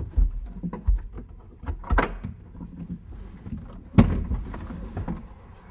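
Chevrolet Avalanche's removable rear window glass and midgate panel being handled and latched: a few sharp clicks and knocks, the loudest a single thunk about four seconds in.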